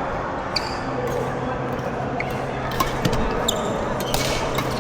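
Badminton doubles rally in a hall: irregular sharp racket hits on the shuttlecock, with brief high squeaks of court shoes.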